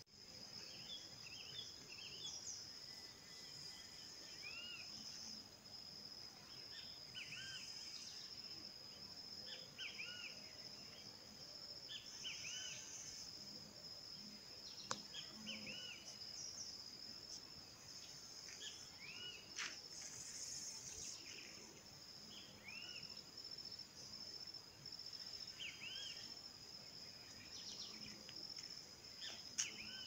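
Wild birds calling in short, arched whistled notes repeated every second or two, over a steady high-pitched insect call.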